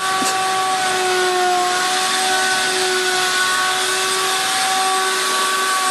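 Ridgid wet/dry shop vacuum running steadily, a constant motor whine over a rushing hiss, sucking up water from a flooded carpet after a toilet overflow.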